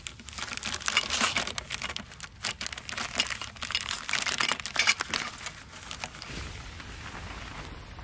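Clear plastic packaging of a tarp pole set crinkling and crackling as hands open it, a dense run of sharp crackles. About six seconds in, it gives way to a low, steady rumble.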